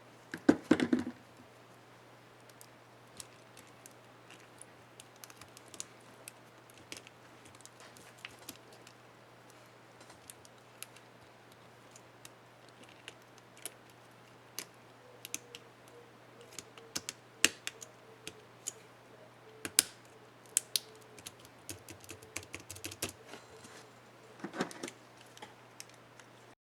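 Scattered small plastic clicks and taps on an HP dm4 laptop keyboard as a keycap is fitted and pressed, with denser bursts of clicking about a second in and near the end, over a faint steady hum.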